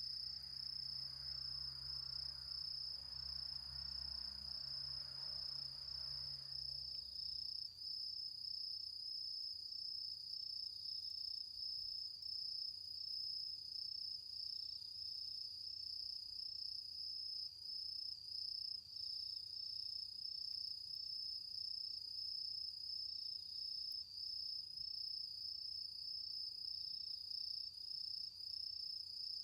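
A steady chorus of autumn insects trilling, high-pitched and continuous, with a low rumble underneath for the first several seconds that then stops.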